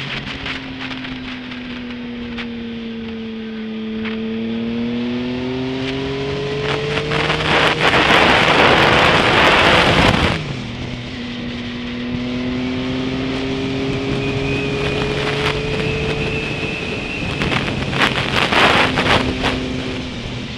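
Motorcycle engine running under a rider on the move, its pitch sinking and then rising as the throttle is eased and opened through bends, dropping suddenly about ten seconds in and climbing again. Wind rushes loudly over the helmet-mounted microphone for a few seconds in the middle and again near the end.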